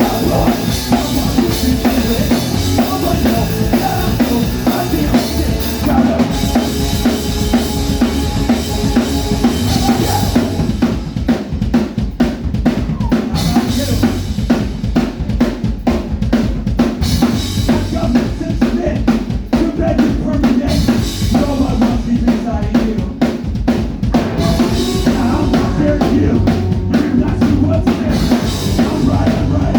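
Live rock band playing a song with a busy, driving drum kit of bass drum, snare and rimshots, loud and continuous; the cymbals drop back about ten seconds in while the drums keep up a fast beat.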